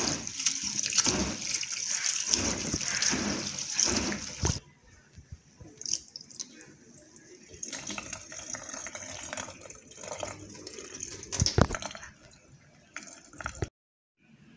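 Rice being washed by hand in a plastic bowl of water: loud rhythmic swishing and sloshing as the grains are rubbed. After about four and a half seconds it turns quieter, with trickling and splashing as the rinse water is poured off, and a single sharp knock near the end.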